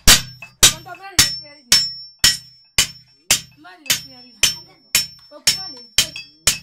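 Blacksmith's hand hammer beating sheet metal on an anvil in a steady rhythm, one sharp blow about every half second, about thirteen in all, each ringing briefly with a high metallic tone.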